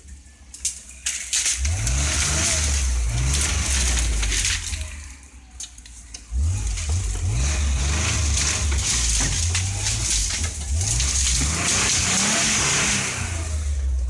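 Land Rover engine revving up and easing off several times as the 4x4 pushes through dense bush, dropping away briefly about five seconds in. Branches scrape and crack against the bodywork throughout.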